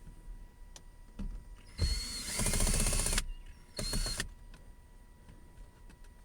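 Cordless drill/driver spinning out screws from a car's center console, run twice: a longer burst of about a second and a half, then a short one, each starting with a brief rising whine.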